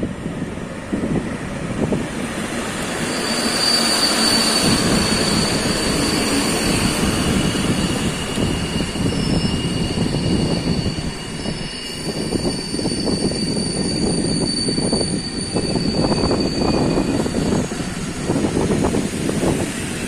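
A train running through a station: steady rumble of wheels on rail growing louder about three seconds in, with high thin whining tones above it.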